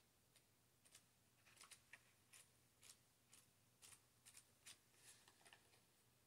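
Faint, irregular paper rustles and soft clicks: the pages of an oracle-card guidebook being leafed through.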